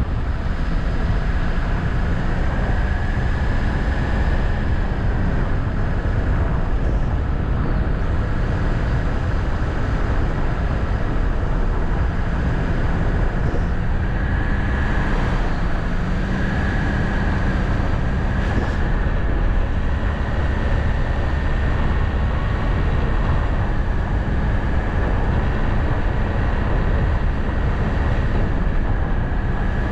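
A road vehicle driving steadily: continuous engine and road noise, with the engine's tone drifting slightly up and down.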